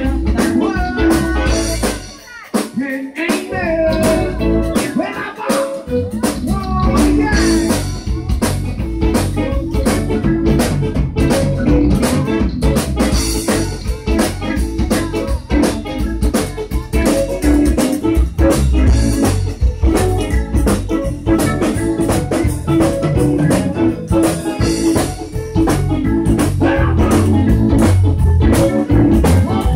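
Live zydeco band playing: diatonic button accordion over electric guitar, bass guitar and drum kit with a steady beat. About two seconds in, the bass and drums drop out briefly, then the full band comes back in.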